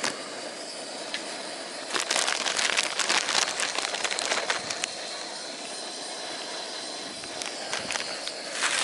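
Steady hiss of a gas camp stove under a pan of boiling ramen broth. About two seconds in comes a burst of crackling and rustling lasting a couple of seconds as a block of instant noodles goes into the pan, and a shorter rustle near the end.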